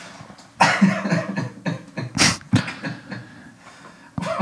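People laughing hard after a joke, in irregular breathy, gasping bursts.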